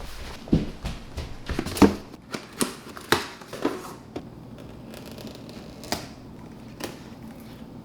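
Close handling noise: a quick run of clicks, taps and knocks for about four seconds, then only a few single clicks over a faint steady hum.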